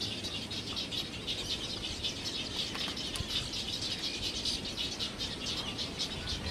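Dense, continuous high-pitched chatter of many birds calling at once in a waterbird nesting colony.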